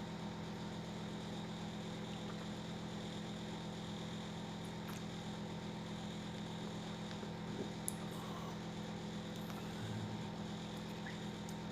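Steady low electrical hum over faint room noise, with a couple of faint clicks past the middle.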